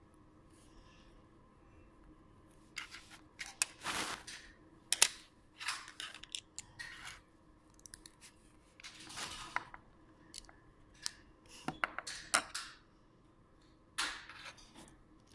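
Small plastic Lego bricks handled and pressed together, with irregular clicks, snaps and short scraping rustles of plastic on plastic, starting a few seconds in.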